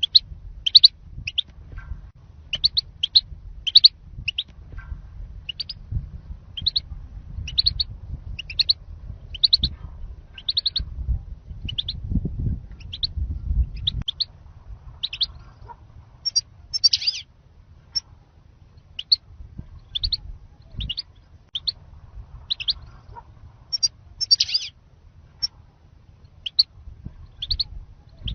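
European goldfinch giving short, sharp calls, repeated about one or two a second throughout, over a low rumble. A lure call of the kind used to draw wild goldfinches to a trap.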